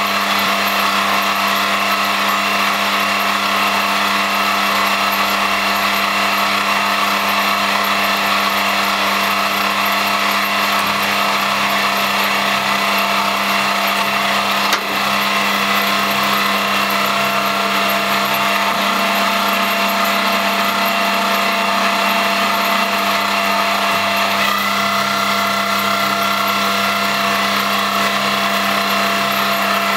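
Spindle motor and gear train of an X3 milling machine, set up as a CNC lathe, running steadily at speed with a constant whine. A short dip comes about halfway through, and the tone shifts slightly near the end.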